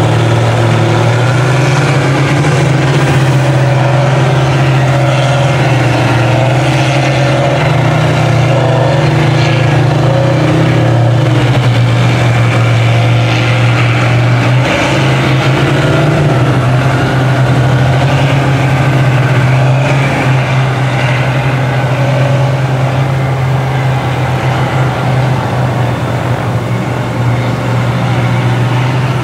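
Engine of a lifted Dodge Ram mud truck on tractor tires running under steady load with a low, even drone as it crawls through deep mud, easing off slightly past two-thirds of the way through.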